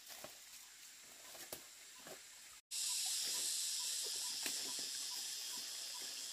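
A few soft knocks and rustles of a digging tool working loose soil and roots. Then, after an abrupt cut, a steady high-pitched drone of forest insects, with a faint chirp repeating several times a second.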